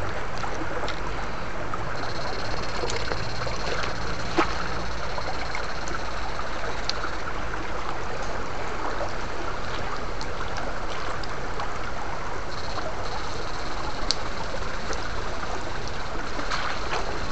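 Shallow rocky stream water running and splashing as electrofishing probe poles and a hand net are worked through it, with small scattered clicks. A thin, steady high whine starts about two seconds in, stops around nine seconds, and comes back near the end.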